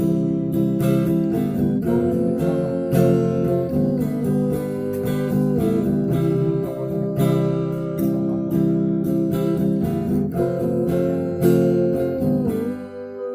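Acoustic guitar strumming chords in an instrumental break, with no singing.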